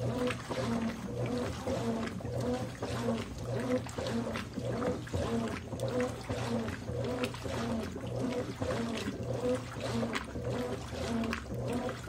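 Consul 13 kg top-load washing machine agitating a load of bath towels in water: a steady motor hum under a rhythmic drone that pulses about twice a second with the agitator strokes, and water sloshing in the tub.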